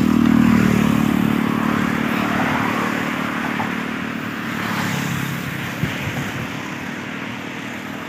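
A road vehicle's engine passing close by, with road noise, loudest about half a second in and then slowly fading as it moves away.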